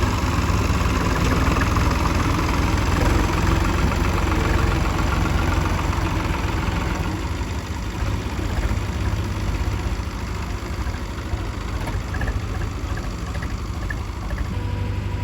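Heavy diesel engine of the backhoe or tractor running steadily, fuller and louder for the first seven seconds or so, then easing to a lower, quieter run.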